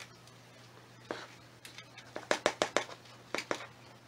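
Plastic scoop working potting soil from a bowl: a quick run of sharp clicks and knocks, densest and loudest in the middle, with a few single clicks before and after.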